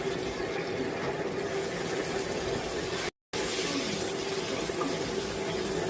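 Milk heating in a pan with melted butter, garlic and curry leaves, giving a steady hiss. The sound drops out for a moment about three seconds in.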